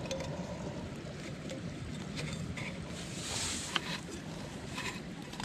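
Faint clicks and rustles as the small metal parts of a cheap alcohol stove kit are handled and set up, over a steady low rumble.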